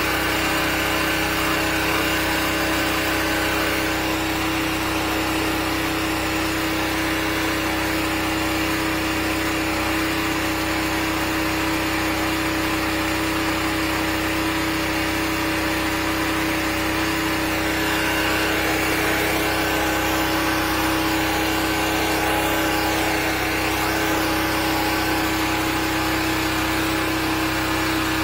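13-horsepower high-pressure sewer jetter engine running steadily at constant speed, with the hiss of the water jet, as the nozzle is worked into a drain line clogged with hardened grease.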